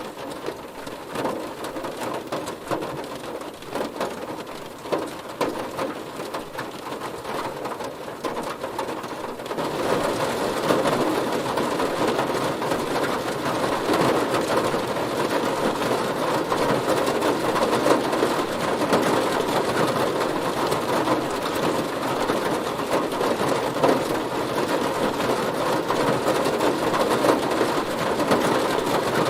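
Heavy rain hitting a car's body in a dense, even patter that grows louder and heavier about ten seconds in.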